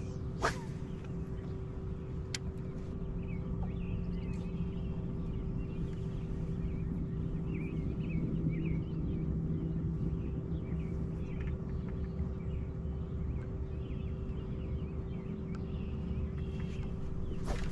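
Steady low hum with a constant tone, typical of a bass boat's electric trolling motor running while the boat holds on the fishing spot. Faint, short high chirps come and go through the middle, and there are a couple of sharp clicks near the start.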